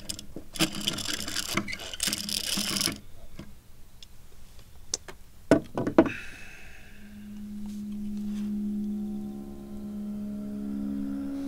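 Scratchy scraping with fine clicks as a tobacco pipe is worked by hand, then a few sharp clicks about five and a half seconds in. From about seven seconds in, a low sustained musical drone with several held notes above it takes over.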